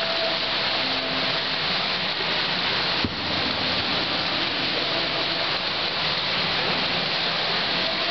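Steady, even hiss of an indoor swimming pool hall, like rain, with a single sharp click about three seconds in.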